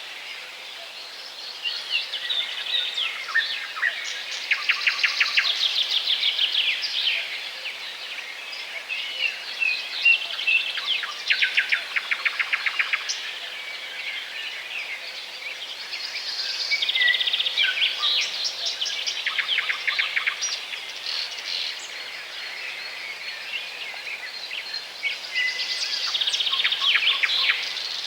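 Small songbirds singing and calling: fast trilled phrases of rapidly repeated high notes come every several seconds, with scattered chirps between them, over a steady outdoor hiss.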